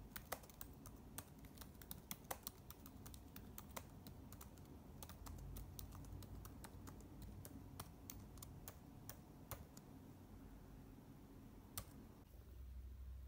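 Faint typing on a laptop keyboard: quick, irregular key clicks for about ten seconds, then they stop, with one last click shortly after.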